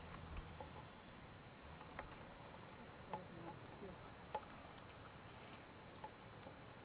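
Faint, steady high-pitched chirring of insects in the grass, with a few scattered faint clicks.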